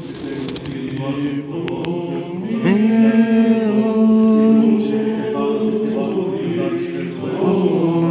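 Eastern Orthodox liturgical chant sung unaccompanied by several voices, swelling into long held notes about two and a half seconds in. A few light clicks sound within the first two seconds.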